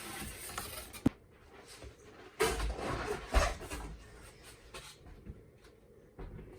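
Cardboard and packing material rustling and scraping as an espresso machine's shipping box is unpacked by hand, with a single sharp knock about a second in and a louder stretch of handling noise about halfway through.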